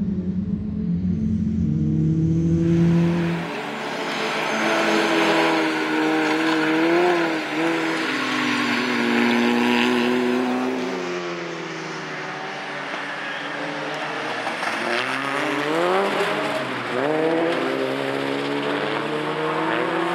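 A deep engine drone cuts off about three and a half seconds in. After it, several hatchback race car engines run hard at once, their pitch rising and dropping with gear changes and braking as they lap the circuit.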